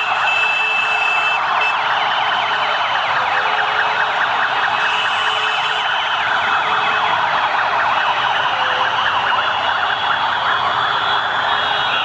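Deafening din of many police motorcycle and scooter sirens and horns sounding together: a slow wail rising and falling over several seconds, many fast yelping sirens on top, and horns held down as steady tones throughout.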